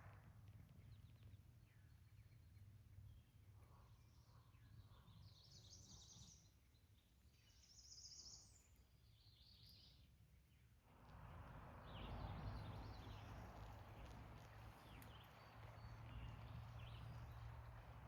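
Quiet outdoor ambience with a few faint, short high bird chirps, then from about eleven seconds in a louder, steady rustling noise with a low rumble.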